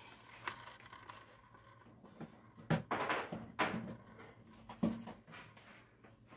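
A few scattered knocks and clatters, with a brief rustling patch about three seconds in, over a faint steady low hum.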